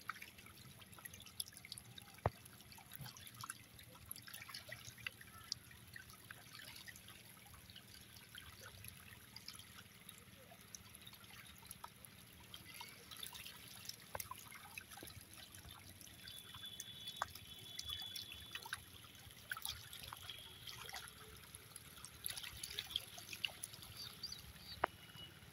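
Hybrid magur catfish crowded at the water surface while feeding, a faint continuous patter of small wet splashes, drips and clicks as they thrash and gulp.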